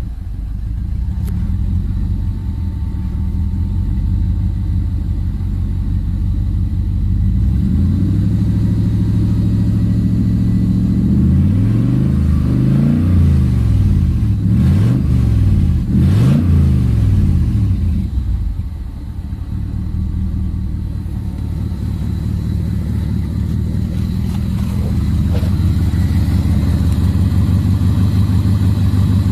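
Car engine idling, then revved: the revs climb about a third of the way in and are swept up and down several times in quick succession before falling back to a steady idle.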